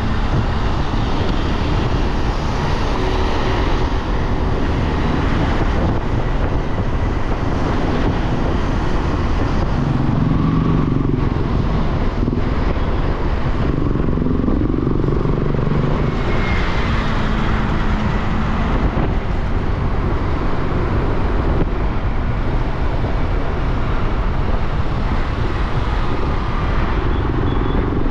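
Steady traffic noise from a moving motor scooter: its own small engine running, along with road noise and the engines of the surrounding cars, autorickshaws and motorcycles.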